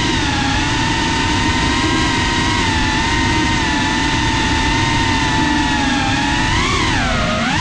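FPV quadcopter's motors and propellers whining at a steady pitch over a rushing low noise. Near the end the pitch rises briefly, then dips and climbs back.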